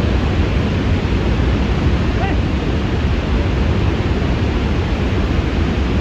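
Niagara's Horseshoe Falls: the deep, steady rush of a huge volume of falling water, heaviest in the low end and unbroken throughout.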